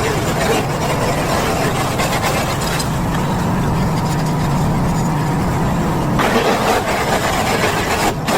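Small petrol engine running steadily, with a hissing upper layer that fades for about three seconds in the middle and then comes back.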